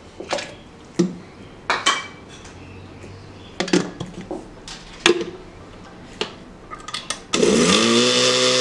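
Knocks and clinks of a glass blender jar and its plastic lid being handled and fitted. About seven seconds in, the blender motor switches on, rises quickly in pitch and settles into a steady run, blending masa with chicken broth.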